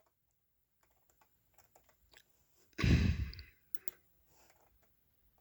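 Faint scattered computer clicks, with one short breathy rush of noise into the microphone about three seconds in.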